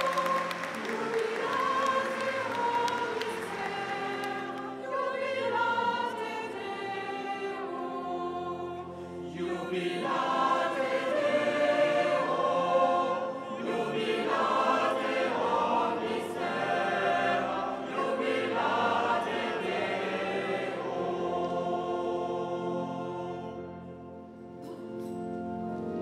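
A choir singing a sacred chant in sustained, held chords. Applause dies away under it over the first few seconds.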